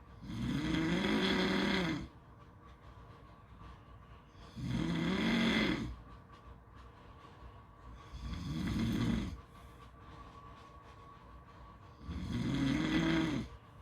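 Snoring in slow, regular breaths: four long snores about four seconds apart, each a drawn-out rasp whose pitch rises and then falls. A faint steady hum fills the gaps between them.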